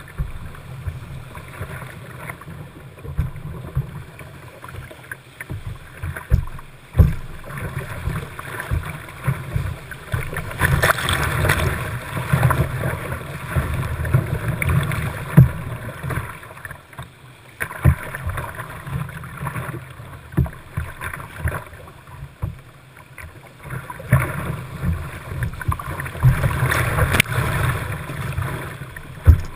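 Whitewater rushing and splashing around a kayak running a rapid, with a steady low rumble and irregular thumps of water striking close by. The rush swells louder about ten seconds in and again near the end.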